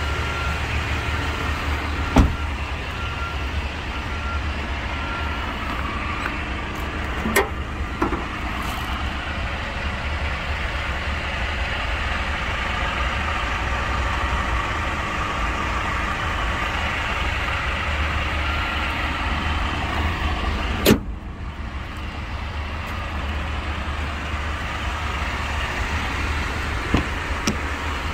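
Hyundai Porter II truck's engine idling steadily, a constant low hum. A few sharp knocks sound over it, the loudest about two-thirds of the way through.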